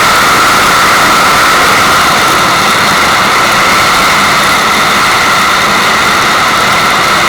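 Loud, steady rush of running water: an even hiss with no breaks or changes.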